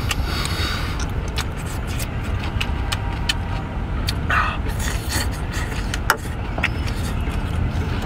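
Shellfish being eaten by hand: scattered sharp clicks of shells and chewing and sucking noises, over a steady low rumble.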